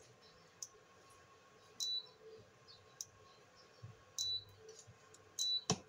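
Induction cooktop giving three short, high beeps about two seconds apart. The cooktop is not detecting the pan set on it and will not heat. A sharp knock comes near the end.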